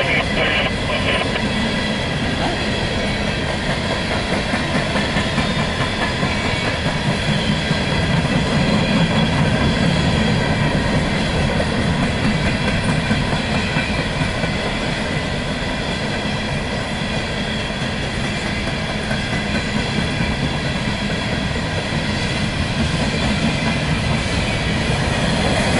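Empty coal cars of a freight train rolling steadily past: a continuous rumble and clatter of steel wheels on the rails, with a rapid clickety-clack.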